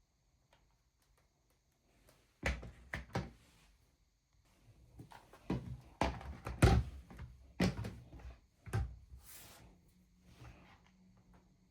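Handling noise: a string of irregular knocks and clunks of hard objects being moved and set down, the loudest a little under seven seconds in, with a brief hiss about nine seconds in.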